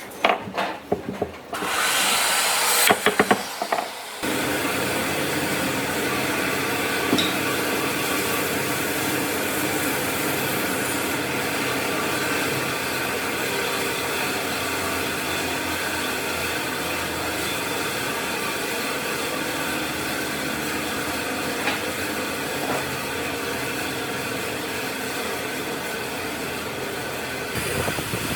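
A woodworking power tool running steadily on wood, after a few knocks and a short burst of hissing near the start.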